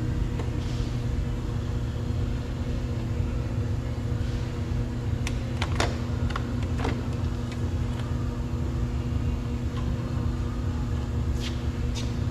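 A steady low mechanical hum with several steady tones, with a few light clicks and taps from handling the door trim parts, around the middle and near the end.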